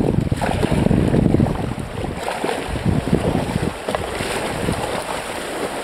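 Wind buffeting the microphone over the sound of moving river water, heaviest for the first two seconds and then easing to an uneven rumble.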